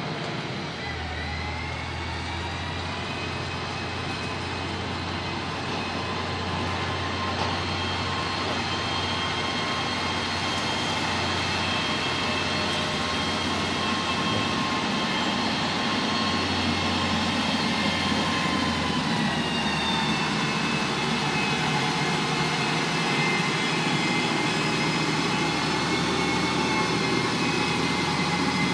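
XCMG GR215 motor grader's diesel engine running as the grader drives up close, a deep engine note with a high whine over it. The whine dips and rises again about two-thirds of the way through, and the whole sound grows gradually louder as the machine approaches.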